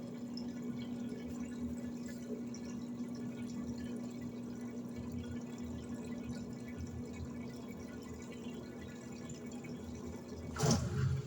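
Electrolux LED14 washing machine filling with water: water runs into the tub over a steady hum. Near the end the hum stops and there is a sudden, louder burst of noise.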